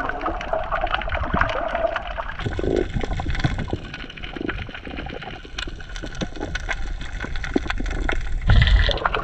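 Water gurgling and sloshing, with many small clicks and crackles throughout and a low thump near the end.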